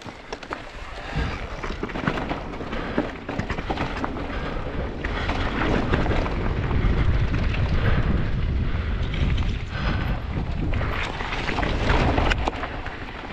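Mountain bike rolling fast over rock and loose stones: tyres crunching, with constant small rattles and knocks from the bike, and heavy wind rumble on the helmet camera's microphone. The noise swells about a second in.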